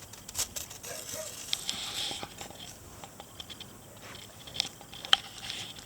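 Akita puppies nibbling and scuffling, with scattered light clicks and scrapes and a couple of sharper ticks near the end.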